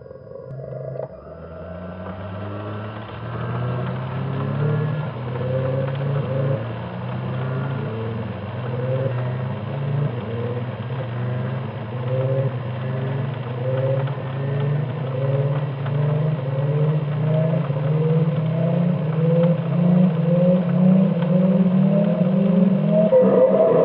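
Bandai DX Arcle toy transformation belt playing its electronic henshin sound effect, slowed down: a low, rhythmic pulsing whir that slowly climbs in pitch and grows louder, building up the transformation. A brighter tone comes in near the end.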